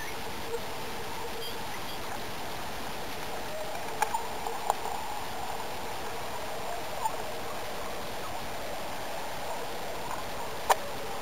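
H0-scale model train running on the track: a steady small-motor and wheel hum, with a few sharp clicks, the loudest near the end.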